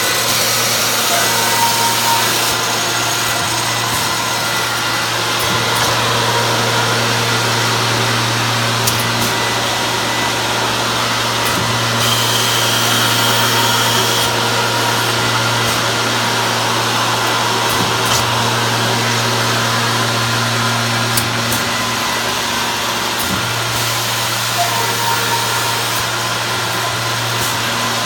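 Scotchman 315 HFA CNC automatic cold saw running through its automatic cycle, cutting stacked aluminum extrusion: a steady motor hum under a broad hiss. The sound shifts several times as the machine moves between cuts and stock feeds.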